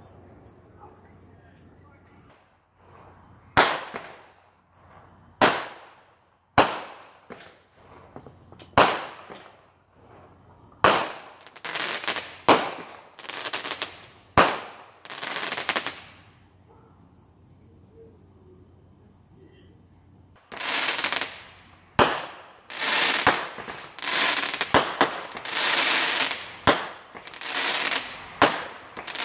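Consumer fireworks going off in the neighbourhood: a string of sharp single bangs one to two seconds apart, then longer crackling bursts. After a lull of a few seconds, a dense run of crackling and bangs fills the last part.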